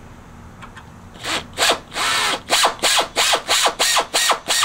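Handheld air drill pulsed in short bursts, about three a second, each whirr dropping in pitch as the trigger is let off, starting after about a second of quiet. The bit is beginning to bite into the head of a steel rivet, fed in carefully in stops and starts.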